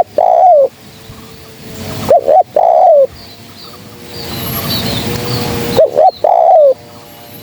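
Spotted dove (terkukur) cooing: each phrase is two short coos followed by a longer coo, repeated about three times, roughly every four seconds. Faint high chirps of other small birds sit in the background.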